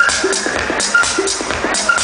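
Loud electronic techno DJ music: a steady, evenly repeating beat with hi-hats, a short repeating synth note and a high tone.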